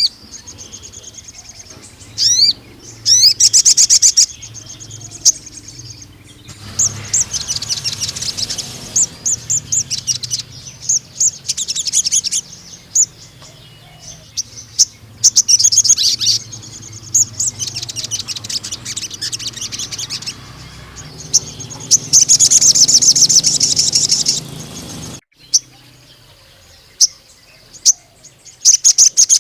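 Male sogon sunbird singing vigorously: repeated bursts of rapid, very high trills and chirps, some several seconds long, with short pauses between. A low steady hum runs underneath and stops about 25 seconds in.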